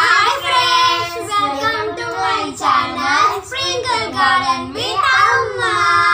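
Two young children singing together loudly, in several long drawn-out phrases.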